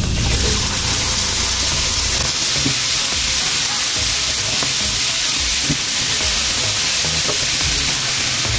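Tofu cubes, button mushrooms and sauce sizzling in melted butter on a hot cast-iron sizzling plate: a steady, dense hiss with a few small pops.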